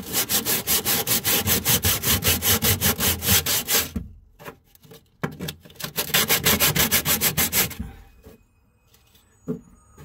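Coarse 60-grit sandpaper rubbed by hand against the fiberglass underside of a boat's deck in quick back-and-forth strokes, about five a second. The sanding takes out a damaged, rotted area toward bare glass. It pauses about four seconds in, resumes, and stops near the end.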